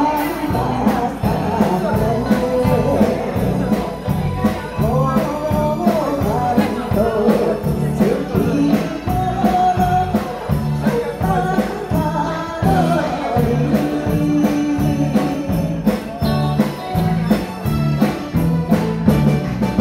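A woman singing a Taiwanese pop song into a microphone, backed by a live band of drum kit, electric guitar and keyboard playing a steady beat.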